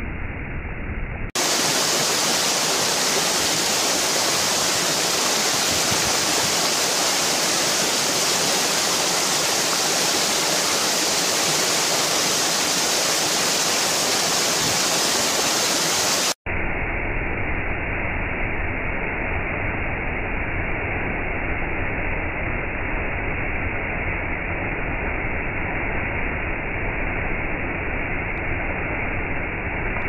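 Waterfall water rushing in a steady hiss, in separate recordings joined by abrupt cuts: a bright, hissing stretch from about a second in to about halfway, then a duller, lower-sounding rush with more rumble.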